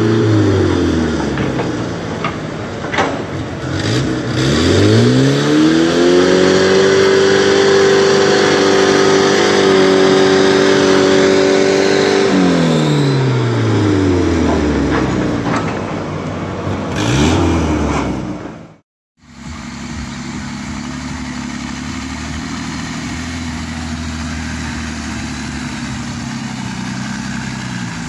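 Pickup truck engine revving hard as it pulls through deep mud: the revs climb over several seconds, hold high, fall away, then rise briefly once more. After a sudden cut about nineteen seconds in, a steady, lower engine drone.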